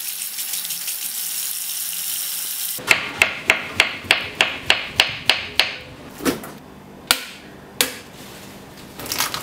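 Tap water running steadily for about three seconds, then a knife chopping through a banana onto a wooden chopping board, about three to four quick strikes a second, followed by a few separate knocks.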